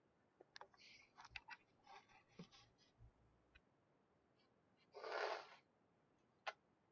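Near silence over a videoconference line, with scattered faint clicks in the first few seconds, a short burst of noise about five seconds in and a single sharp click near the end.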